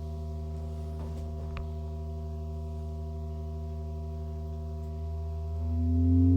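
Low test tone played through a Medion TV, held steady with a stack of overtones, then starting to rise in pitch and get louder near the end as a frequency sweep from 50 Hz to 400 Hz begins. The sweep is there to find the resonance that makes the TV squeak.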